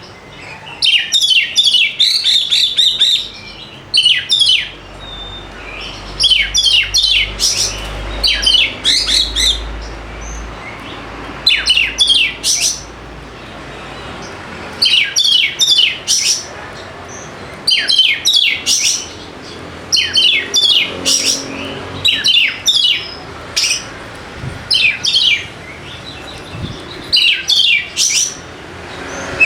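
Oriental magpie-robin (kacer) singing: short bursts of a few rapid, sharp, whistled notes, repeated every second or two with brief pauses between.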